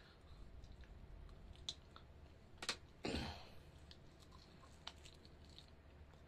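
Quiet chewing and small mouth clicks of a man eating a piece of food, with a sharp click about two and a half seconds in followed by a short louder noise.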